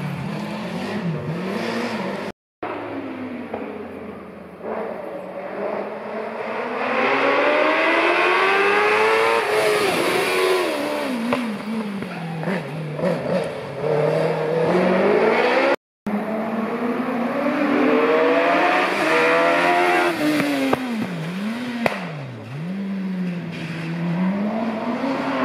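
Racing car engines at hard throttle climbing a hillclimb course. The engine note rises sharply through the revs and falls back again and again as the cars shift gears and pass by. The sound cuts out completely twice, briefly.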